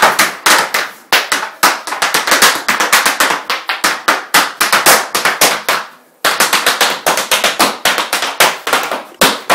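Irish step dancing: fast, loud foot taps and stamps of shoes on a hardwood floor, many strikes a second in quick rhythmic runs. The footwork breaks off briefly about six seconds in, then starts again.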